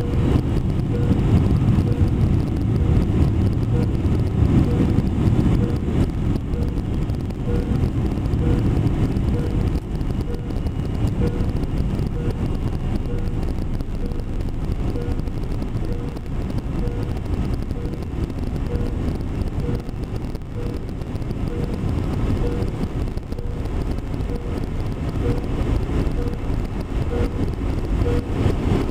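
A short, mid-pitched electronic beep repeating at an even pace, roughly once a second, from the cabin system that the crew could not reset. It sounds over the loud, steady rumble of the airliner cabin, which is heaviest in the first several seconds.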